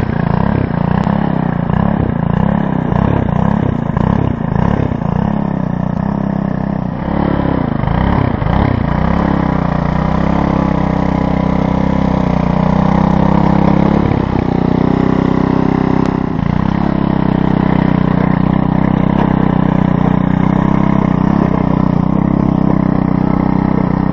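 Earthquake Versa front-tine tiller's 99cc four-stroke Viper engine running under load while its tines churn dry, sandy soil. The engine note wavers for the first several seconds, then settles and holds steady.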